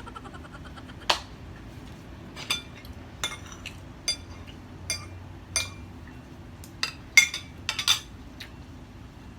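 A metal spoon clinking and knocking against dishes while more rice is scooped onto a plate: about ten sharp, ringing clinks at uneven intervals, the loudest about seven seconds in.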